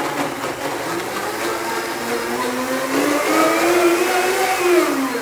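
High-powered countertop blender running loud, blending a ripe banana with water into banana milk. Its motor hum climbs slowly in pitch, then drops as it starts to wind down at the very end.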